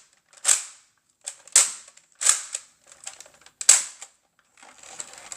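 Hard plastic clicks and clacks from handling a Nerf Crossbolt blaster: four separate sharp snaps about a second apart, with faint rustling near the end.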